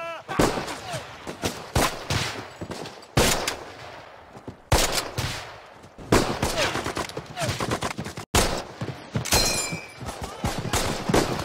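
Battle gunfire from a war film's soundtrack: rifle and machine-gun shots cracking at irregular intervals, with men shouting between them. The sound cuts out for an instant a little past the middle.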